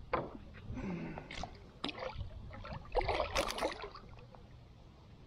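Knocks, rubs and brief water sounds of a fishing line being hauled in by hand from a kayak against a heavy catfish, busiest about three seconds in, then quieter.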